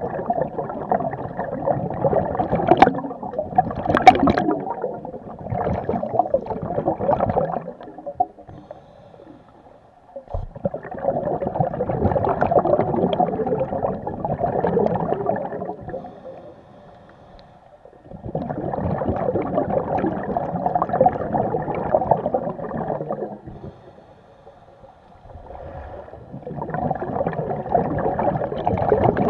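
Scuba regulator breathing: exhaled air bubbling and rumbling out of the regulator in long bursts, four breaths with short pauses between them.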